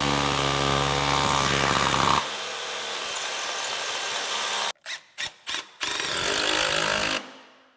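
Hammer drill boring into a concrete slab floor with a dust-extraction vacuum running alongside; the hole is drilled only to a set shallow depth. The drill runs hard for about two seconds while the vacuum keeps going, there are a few short clicks, then another run, and everything winds down near the end.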